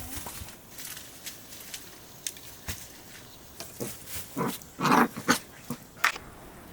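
A domestic animal calling a few short times, loudest about five seconds in, after a sharp knock at the very start.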